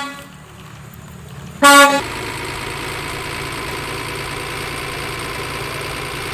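A horn honk fades at the start, and a second short honk sounds about a second and a half in. At about two seconds a steady engine running sound starts and holds on.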